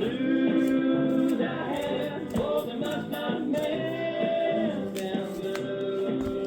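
Music with long held notes that change pitch every second or so.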